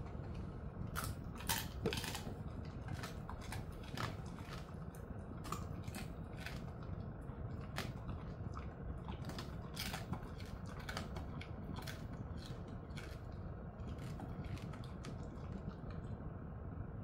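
Jindo-mix dog chewing a hard treat: irregular crunching clicks, thick for about the first eleven seconds and sparser after that, over a steady low hum.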